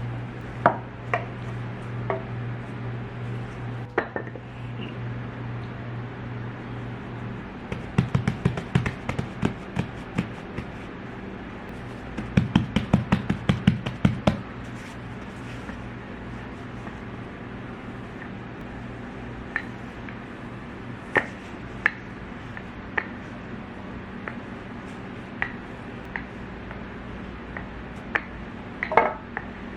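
Kitchen baking sounds while making bread: a low steady hum that stops about seven seconds in, then two runs of quick knocks and taps from utensils against a bowl, with scattered clinks of dishes and utensils after that.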